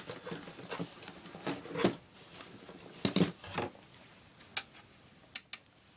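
Scattered sharp clicks and taps of a small magnet being tried against the metal frame of a US ALICE pack, with a cluster about three seconds in. The magnet doesn't take hold: the frame may be an aluminum alloy rather than steel.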